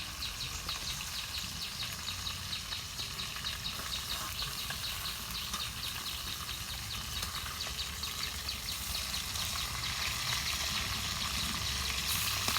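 Fish pieces frying in hot oil in a karai, a steady sizzle. Through it runs a rapid high chirping, about four or five chirps a second.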